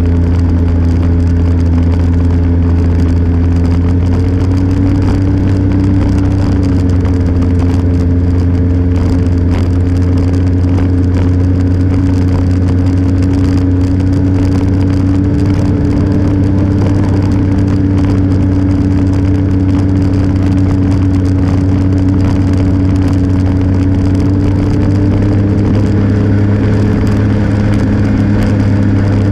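Engine of the vehicle carrying the camera, running steadily at a constant pitch as it drives along a snow-covered road, its pitch edging up about five seconds in and shifting again near the end.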